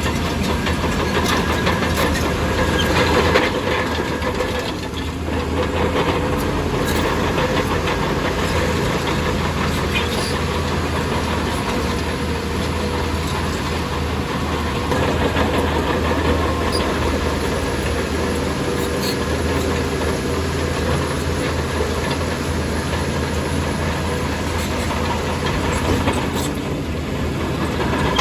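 Diesel engine of heavy earthmoving machinery running steadily under load, with scattered metallic clanks and knocks over it.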